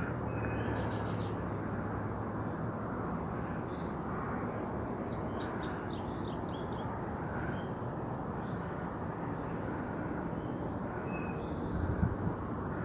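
Outdoor ambience: a steady rushing background with small birds chirping, a quick run of chirps about five to six seconds in and a few single chirps elsewhere. A soft low bump near the end.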